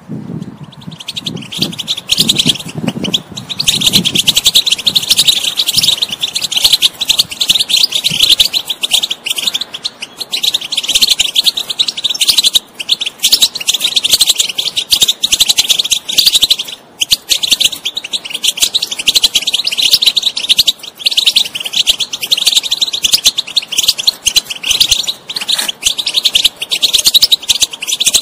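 European goldfinch singing a long, rapid twittering song, broken by a couple of brief pauses.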